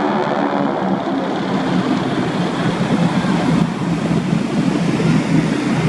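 Propeller aircraft flying past: a steady engine drone mixed with a rushing noise.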